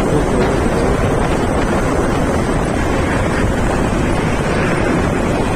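Wind buffeting the microphone of a phone on a moving Honda Activa scooter: a loud, steady rush, heaviest in the low end.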